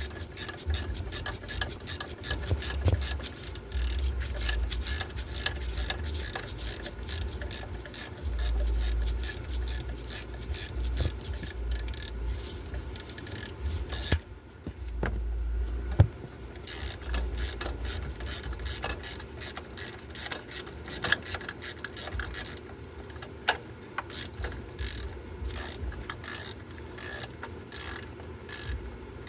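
Hand socket ratchet clicking in rapid runs while the engine's belt tensioner mounting bolt is worked loose, with a short pause about halfway through.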